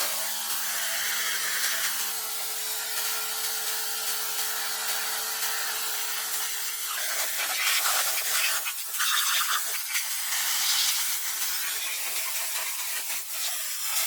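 Steady rubbing and scraping of tool work on a surface, with a faint steady hum beneath.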